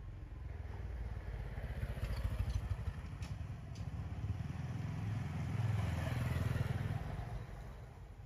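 Small motorcycle engine going by, a low pulsing rumble that swells and then fades away near the end. Two brief sharp clicks about three seconds in.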